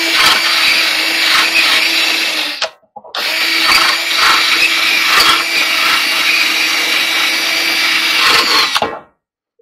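Cordless drill running with its attachment pressed against the rim of a clothes dryer drum, scraping old felt out of the groove. It runs for about two and a half seconds, stops briefly, then runs again for about six seconds before cutting off.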